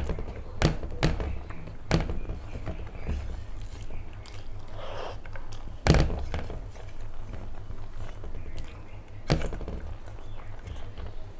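Close-up eating sounds: chewing rice and curry and fingers working the rice on a plate, with five sharp knocks spread through, the loudest about six seconds in, over a low steady hum.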